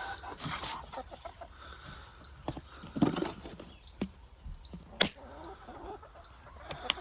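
Domestic hens clucking softly, with several sharp taps and clicks, the loudest about three and five seconds in.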